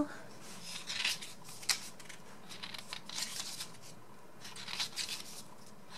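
Pages of a paper photobook being turned and smoothed by hand: several soft rustling swishes, with a sharp tap about a second and a half in.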